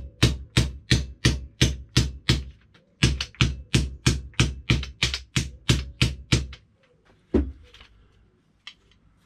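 Steady hammer blows on a metal shelter pole resting on an anvil, about three a second, with a short break near the middle. They stop after about six and a half seconds, followed by one last blow. The pole is being tapped round over a bolt inside it to straighten out a kink.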